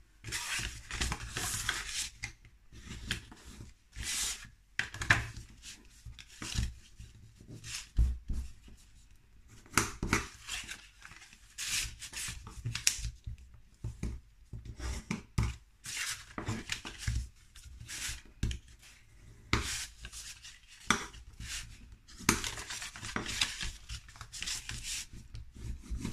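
Red cardstock being folded and its creases rubbed down with a bone folder: irregular scraping strokes of the folder over the card and rustling of the card as it is handled, with a few sharper knocks.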